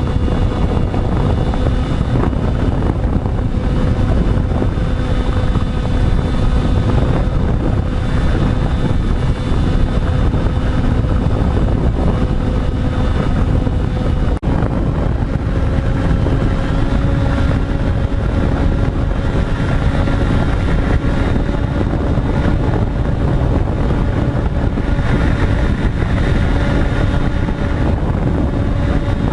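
Electric motors and propellers of an FPV radio-controlled model aircraft running with a steady tone over a loud rushing noise. A brief dropout comes about halfway through, after which the motor tone sits slightly higher.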